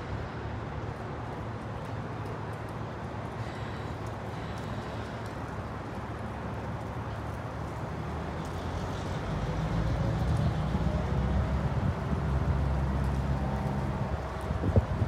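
Diesel locomotive engine running with a steady low rumble that grows louder about nine seconds in.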